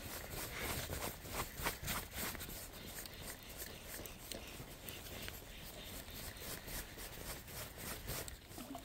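Irregular soft clicks and rustles of fishing tackle being handled as a feeder rod is reeled in, busiest in the first two seconds or so.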